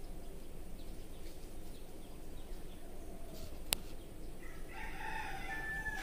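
A rooster crows once: a long call that starts about three-quarters of the way through, over faint bird chirps. A single sharp click comes shortly before it.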